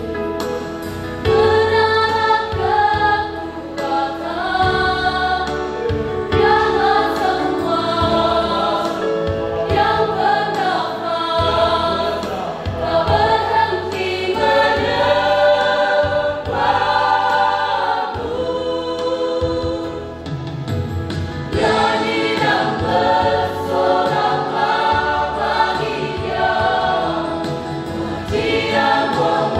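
Mixed youth church choir, young women and young men, singing a gospel song together in several voices, the melody moving up and down continuously.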